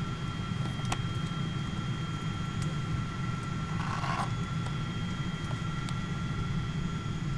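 Steady low hum inside a Boeing 777-200's cabin, with faint steady whining tones above it. A few light clicks and a short rustle come about four seconds in.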